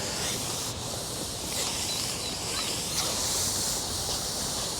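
Steady outdoor lakeside ambience: an even hiss with a low rumble underneath and no distinct event.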